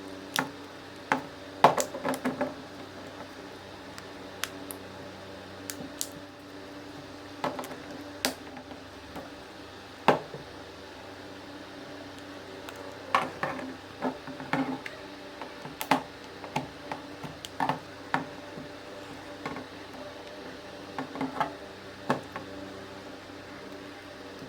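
Irregular small clicks, taps and knocks of a smartphone's plastic and metal parts being handled and fitted back together, some in quick clusters, over a steady low hum.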